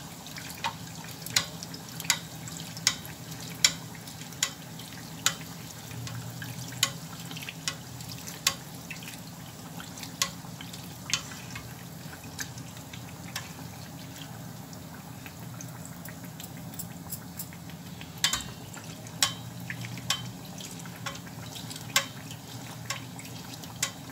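Dough rounds deep-frying in a small saucepan of hot oil, sizzling steadily, while a metal spoon bastes them with oil and clicks against the pan about once every 0.8 seconds. The clicks pause for several seconds midway, then resume less regularly.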